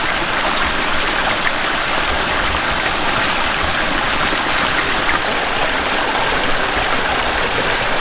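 Water from a hose running steadily into a metal pot of rice and splashing into a concrete sink as the rice is rinsed.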